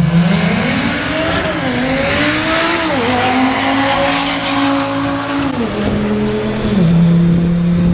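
Car engine pulling hard through the gears on a drag-strip run, its pitch climbing and then dropping at each of several gear changes.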